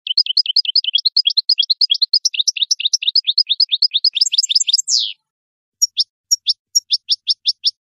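European goldfinch singing: a rapid, even run of short twittering notes for about five seconds, ending in a single downward sweep. After a brief pause comes a slower series of separate down-slurred notes, about four a second.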